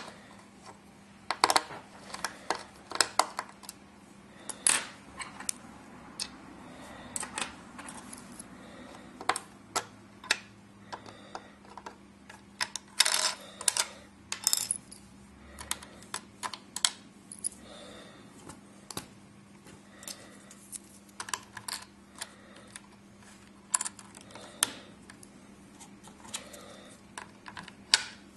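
Irregular small plastic clicks, taps and snaps as fingers lift and work the SIM card cover and card slot in a Spypoint Live trail camera's battery compartment. The clicks come singly and in quick clusters, with a faint steady hum underneath.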